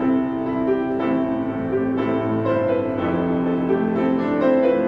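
Slow piano music with long held notes and chords.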